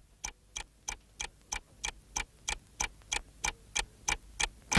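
Steady, even ticking, about three sharp clicks a second, like a clock. At the very end the ticking stops as a sudden loud noise breaks in.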